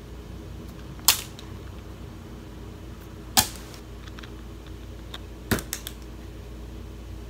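Hard plastic baby pacifiers clicking and clacking as they are picked up and handled: three sharp clacks about two seconds apart, the last followed by a few lighter clicks.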